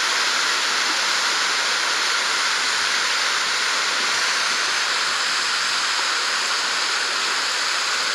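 Steady rush of running water, an even hiss with no separate splashes or changes.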